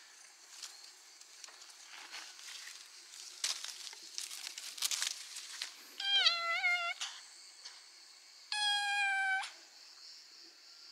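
A black-and-white kitten meowing twice: a short, wavering meow about six seconds in and a longer, steady meow a couple of seconds later. Before the meows come several seconds of leaves and branches rustling as it is handled.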